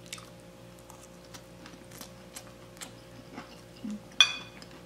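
Metal fork tapping and scraping on a ceramic dinner plate while picking up strands of spaghetti squash: a scatter of small clicks, then one sharper, briefly ringing clink about four seconds in.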